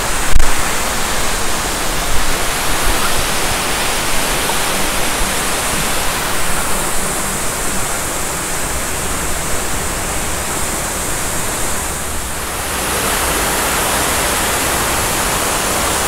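Tall waterfall pouring into a rock pool: a steady, even rush of falling water, with one brief thump just after the start.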